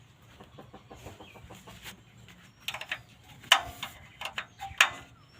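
A series of sharp clicks and knocks, irregularly spaced, the two loudest a little past halfway and near the end, some with a brief metallic ring.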